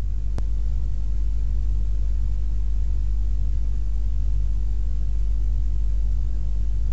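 A steady low hum with a hiss over it, and one sharp click about half a second in.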